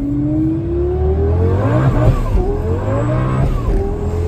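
Twin-turbocharged Lamborghini Gallardo V10 accelerating hard, heard from inside the cabin. The engine note climbs steadily, drops with an upshift a little past two seconds in and again near the end, and climbs again each time.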